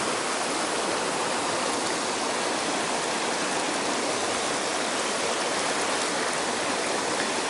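Mountain stream running fast over rocks and a shallow riffle, a steady, unbroken rush of water.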